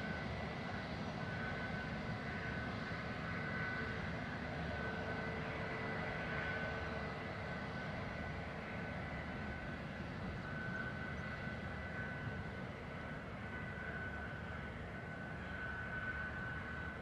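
Airbus A320neo's CFM LEAP-1A turbofan engines running at taxi power as the jet rolls slowly past: a steady engine noise with a thin high whine that fades in and out.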